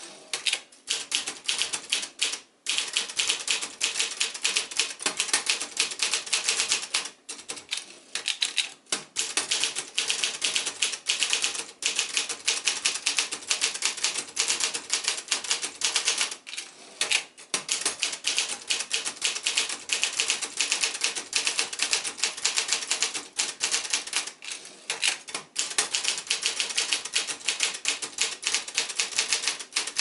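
Brother Accord 10 (JP-7) manual portable typewriter being typed on steadily: a rapid run of typebar strikes and key clacks, broken by a few short pauses, with a carriage return near the start.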